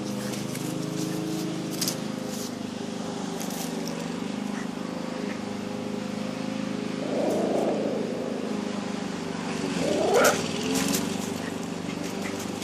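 A small dog scratches and paws at gravel under a shed, with scattered short scrapes and clicks, over a steady mechanical hum. Two brief louder, wavering sounds come about seven and ten seconds in.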